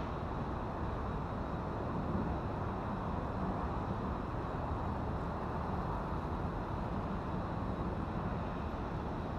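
Steady urban background rumble, like distant road traffic, with no single event standing out.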